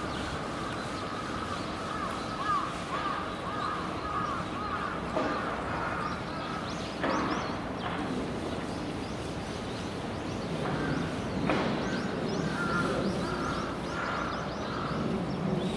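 Birds calling: runs of short, quick chirps, and a few short, harsher calls in the middle.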